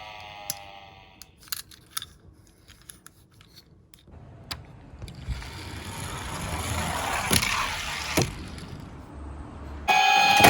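A toy electronic siren trails off, then light plastic clicks and taps. From about four seconds in comes a rolling rumble of Tomica minicars running down a plastic slope, building and fading, with a couple of sharp clacks. Near the end another toy siren starts up loudly.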